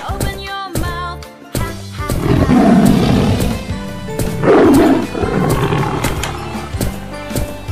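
Bear growl sound effect heard twice, a longer growl a couple of seconds in and a louder, shorter one about four and a half seconds in, over steady background music for children.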